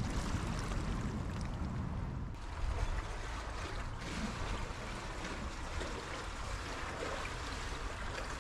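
Kayak being paddled briskly through flat canal water: the paddle blades dip and the hull pushes through with a steady splashing and trickling.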